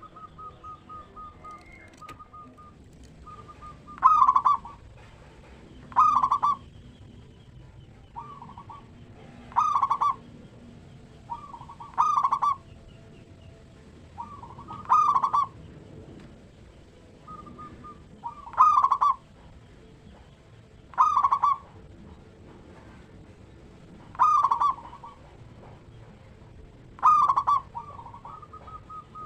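Zebra dove (perkutut) cooing song: a loud rolling coo phrase repeated about every three seconds, with soft quick stuttering notes between the phrases.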